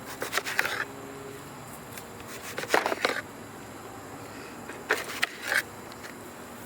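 Knife cutting vegetables: three short bursts of quick clicks and taps, about two seconds apart.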